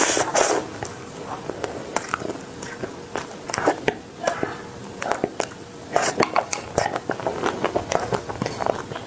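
Close-miked wet mouth sounds: lips sucking and licking melted ice cream off a wooden popsicle stick, with a run of sharp smacks and clicks, louder at the very start.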